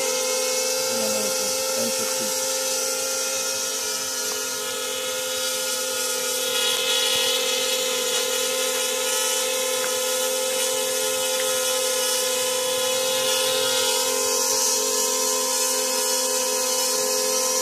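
QAV250 mini quadcopter's brushless motors and propellers whining steadily as it hovers, the pitch holding nearly constant.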